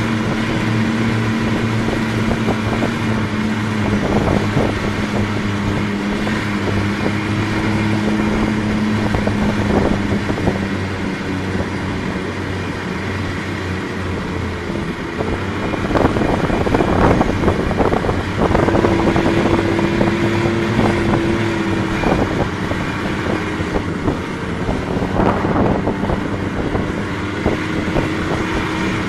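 Snowmobile engine running steadily at trail speed, heard from the rider's seat, with wind buffeting the microphone now and then.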